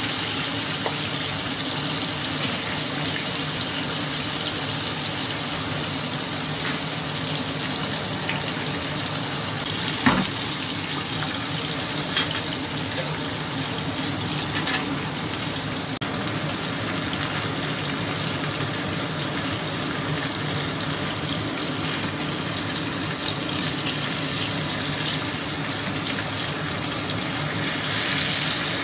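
Pieces of hairtail fish frying in hot oil with ginger slices: a steady sizzle, with a few sharp pops of spattering oil.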